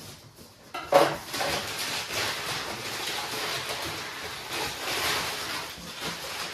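Cardboard box being torn open with a sudden loud rip about a second in, then crumpled brown kraft packing paper rustling and crackling as it is pulled out of the box.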